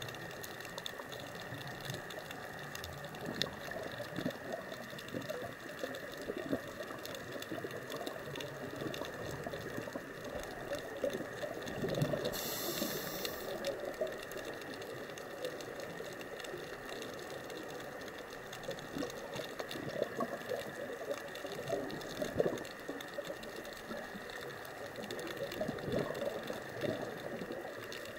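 Underwater ambience picked up through a camera's underwater housing: a muffled, steady watery rush with many faint crackles, and a brief high hiss about twelve seconds in.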